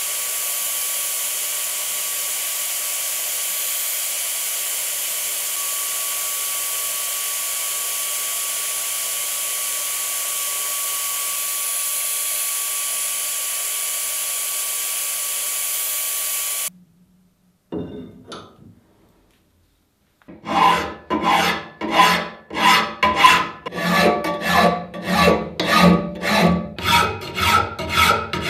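Sandblasting in a blast cabinet: a steady, loud hiss that cuts off suddenly after about 17 seconds. After a short pause, a flat hand file rasps in regular back-and-forth strokes, about one and a half a second, across a steel metal-shear blade held in a vise.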